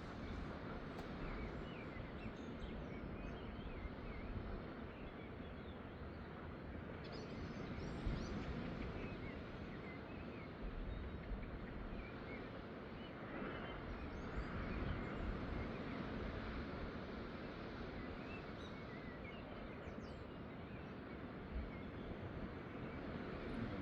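Steady seaside ambience: a wash of surf and wind noise that swells a few times, with faint short high chirps scattered through it.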